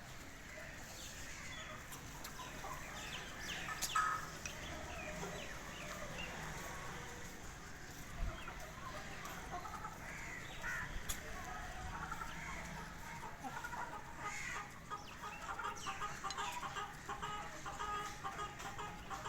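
Chicks peeping in many short, falling chirps, with a mother hen clucking among them. The clucking turns into a dense run of quick repeated notes in the second half.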